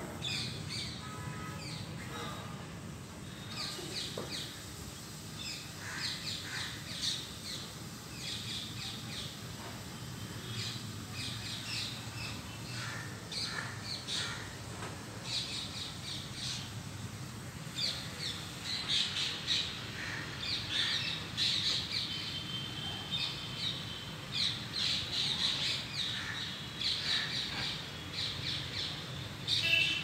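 Rose-ringed parakeets calling in short, harsh squawks, repeated in quick clusters that become busier in the second half.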